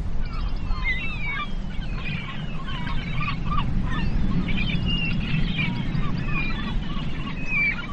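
Many birds calling over one another in short chirps and squawks, over a low steady rumble.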